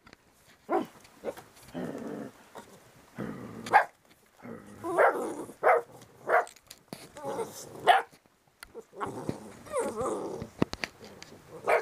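Eight-week-old Rottweiler puppies barking in short, repeated yaps, about a dozen over several seconds. About nine seconds in there is a longer, wavering stretch.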